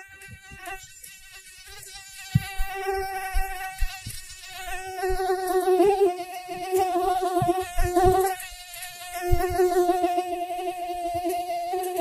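Mosquito buzzing in flight: a thin, wavering whine that swells and fades, growing louder after the first few seconds and breaking off briefly about eight and a half seconds in. Scattered soft low thumps sound underneath.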